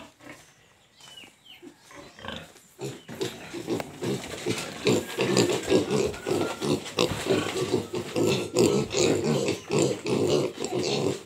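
Several piglets grunting and squealing over one another in rapid, continuous calls. The calls start faint and become loud about four seconds in.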